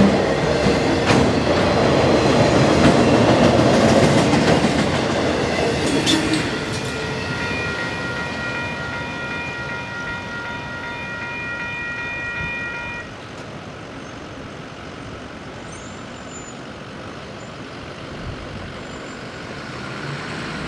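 Freight train of autorack cars rumbling and clattering past over the crossing, fading as the last car clears about six seconds in. A crossing-signal bell rings on in quick, even strokes, then stops about halfway through.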